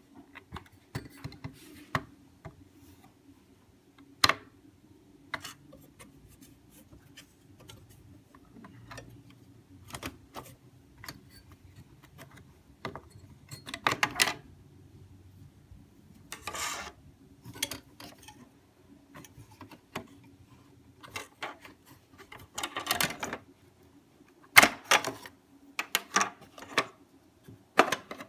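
Scattered sharp clicks, knocks and brief scraping of hands working on a desktop computer's insides to take out a RAM module, over a steady faint low hum.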